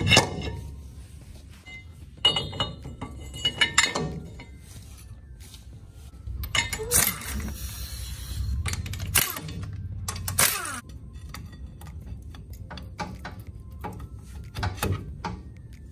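Clinks and knocks of metal brake parts being handled and fitted at a front wheel hub: a disc brake rotor and caliper going on. Sharp clanks come in short clusters a few seconds apart.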